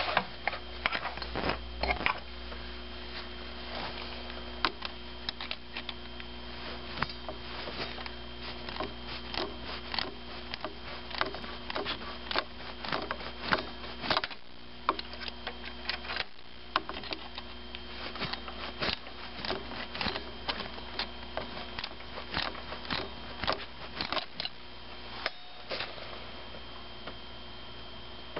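Irregular clicks and light metallic scrapes of hand tools: small channel-lock pliers working the adjusting screw of a vise grip clamped on a heater-hose spring clamp. A steady faint hum runs underneath.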